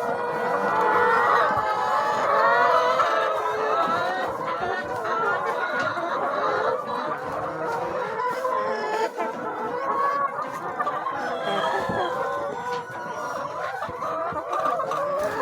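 A flock of chickens clucking and calling, many birds at once, overlapping continuously.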